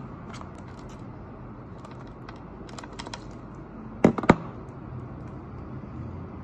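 Wooden chopsticks clicking and tapping in a paper food bowl, a scatter of small light clicks, with two sharp, much louder clicks close together about four seconds in.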